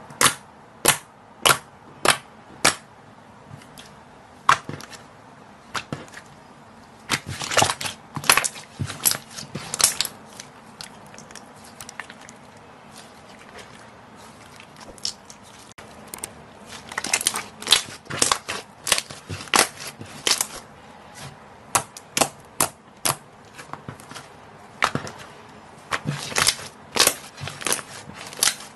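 Glossy pink slime being pressed and stretched by hand, giving sharp pops and clicks, some single and some in quick runs of several.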